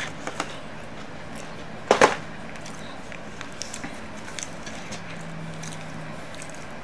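Handling noises as a cardboard takeout box is set aside and a hardcover book is picked up: one sharp knock about two seconds in, then light taps and rustles.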